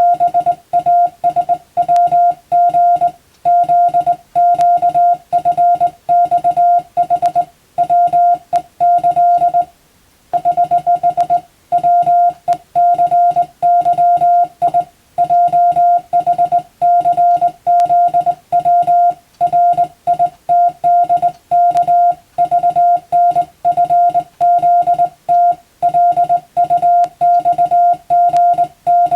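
Hand-keyed Morse code (CW): a single steady tone switched on and off in a running stream of dots and dashes, sending telegram practice text. There is a short pause about ten seconds in.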